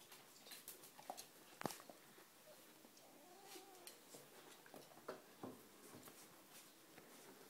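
Faint whimpers and squeaks from a litter of young cocker spaniel puppies, with soft clicks and rustles throughout; the sharpest click comes about one and a half seconds in.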